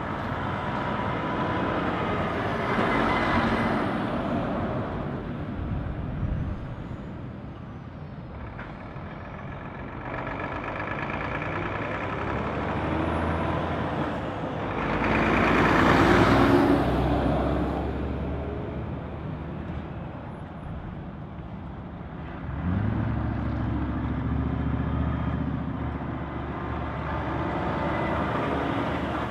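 Volvo FH semi-trucks with six-cylinder diesels passing one after another at low speed, engine drone and tyre noise swelling and fading as each goes by. The loudest pass, with a strong hiss, comes about halfway through, and a little past two-thirds of the way a deeper engine note sets in suddenly as another truck comes on.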